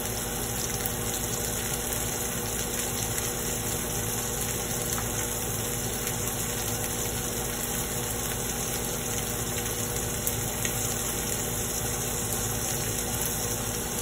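Steak sizzling in a hot frying pan: a steady hiss over a steady low hum.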